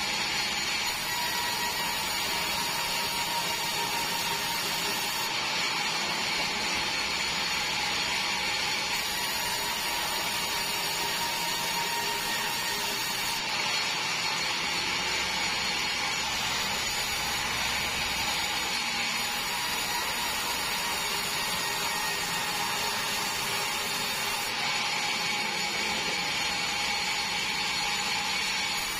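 Sawmill band saw running and ripping long meranti planks as they are pushed through the blade: a loud, steady whine over the even noise of the cut.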